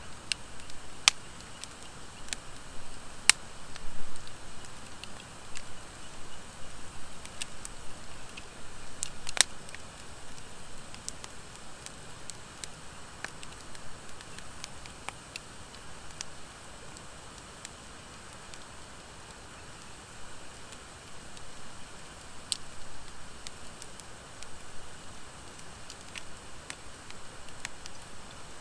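Wood fire of driftwood and dry hardwood logs burning in a fire pit, with a steady hiss and irregular crackling and popping, a few sharp pops standing out.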